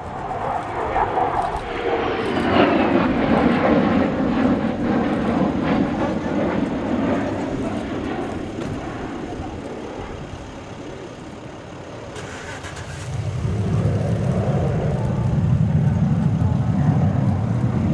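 F-16CM fighter's single jet engine roaring past overhead, its pitch falling a couple of seconds in as it goes by. The roar eases around ten seconds in, then a deeper rumble swells as the jet comes round again.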